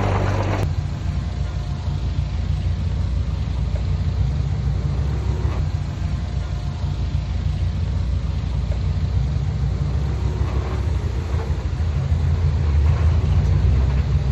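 Heavy diesel earthmoving machinery engine running with a steady low rumble. A fuller, louder noise cuts off abruptly just after the start, and the engine grows louder near the end.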